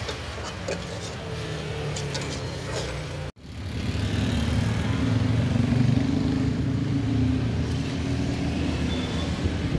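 Metal spatula scraping and clinking against a steel wok in scattered clicks over a low engine hum. About three seconds in the sound cuts off abruptly, then a vehicle engine runs steadily and louder amid street noise.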